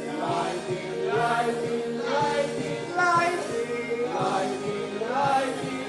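A stage-musical song with a group of voices singing held notes over a backing track.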